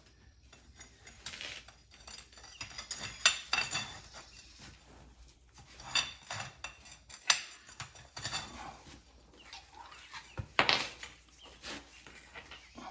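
Metal undercarriage rollers clinking and clanking as they are handled and checked by hand: several irregular, ringing metallic knocks, the sharpest about three seconds and about eleven seconds in.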